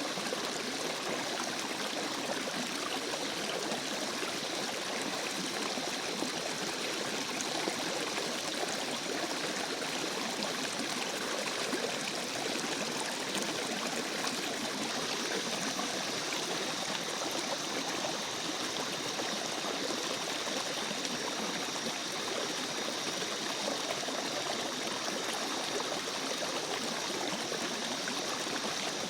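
A stream of water running steadily, with no breaks or changes.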